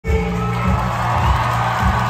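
Loud music with a heavy bass line playing over a cinema's sound system, with a crowd cheering over it.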